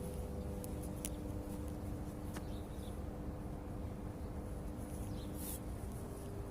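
Steady background hum made of a few low steady tones over a noisy floor, with a few faint ticks about one, two and a half, and five and a half seconds in.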